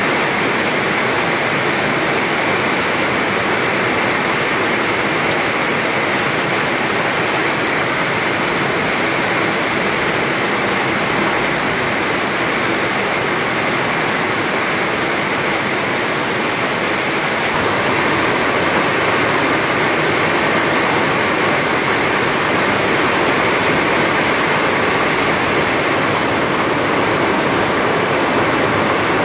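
Rain falling steadily on grass and foliage, an even hiss that grows slightly louder about two-thirds of the way through.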